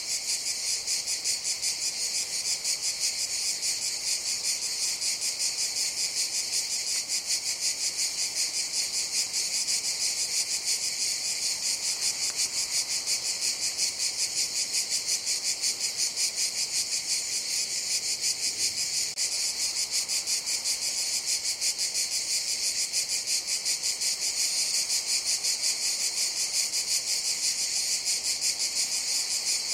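Cicadas calling in a continuous chorus: a steady, high-pitched buzz with a fast, even pulse that does not let up.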